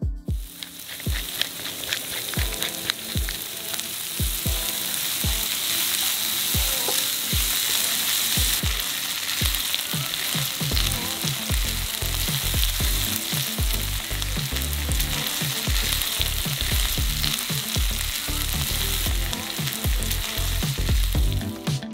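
Food sizzling and crackling in a hot frying pan, starting abruptly, with a steady music beat underneath.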